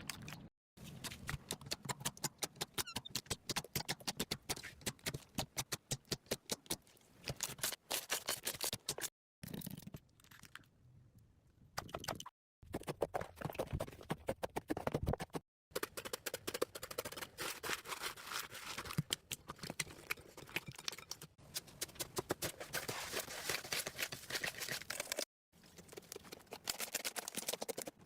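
Slime being squeezed and worked by hand: rapid sticky clicks and crackles, heard in several short clips that start and stop abruptly.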